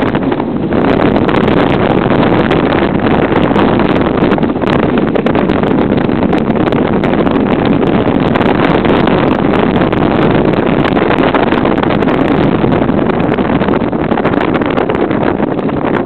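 Bobsleigh's steel runners sliding on the ice track at speed: a loud, steady rumble with many small clicks from the sled, and wind on the microphone.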